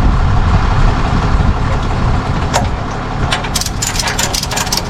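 Tow truck engine idling with a steady low rumble. From about three seconds in, a rapid, irregular run of sharp clicks joins it.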